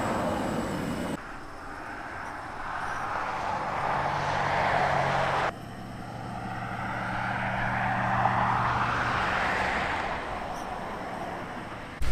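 Highway traffic passing close by: two vehicles go past one after another, each sound rising to a peak and then fading away over a few seconds, with a low engine hum beneath.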